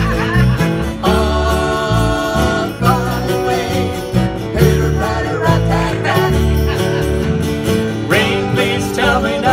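Instrumental break of a pop song, with guitar prominent over bass and band accompaniment.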